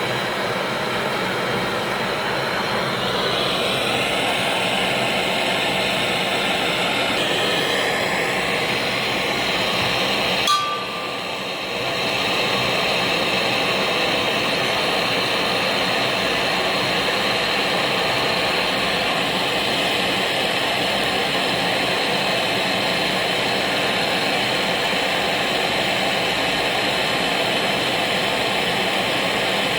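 Steady mechanical running noise, broken by a sharp click about ten seconds in and a brief drop in level before it carries on.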